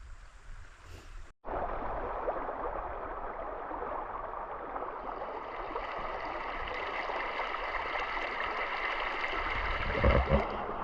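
The Little Red River flowing: a steady rush of moving water. It begins after a short stretch of low wind rumble that cuts off abruptly about a second and a half in. A brief low thump comes near the end.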